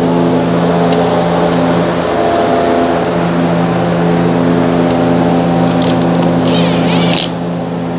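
A steady mechanical drone with a constant hum of several even tones, and brief clicking of a ratchet on a 10 mm undercover bolt near the end.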